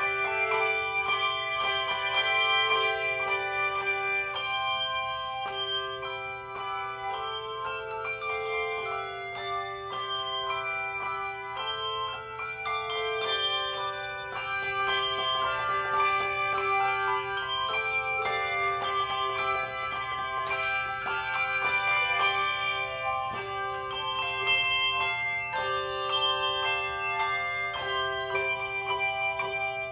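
A handbell choir playing a piece: many handbells struck in turn, their ringing notes overlapping into chords and a melody.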